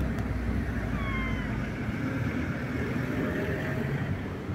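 A cat gives one short, slightly falling meow about a second in, over a steady low rumble of traffic.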